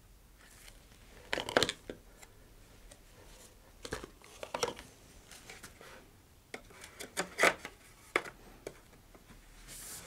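Light knocks, taps and scrapes from a fiberglass rocket tube and fins being handled on a cutting mat as a fin is glued into its slot, loudest about a second and a half in and again about seven seconds in.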